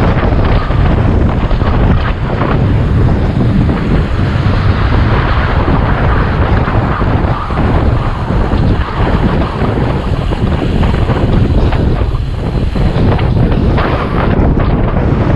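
Wind buffeting a cyclist's camera microphone while riding fast on a road bike: a steady, loud rushing rumble.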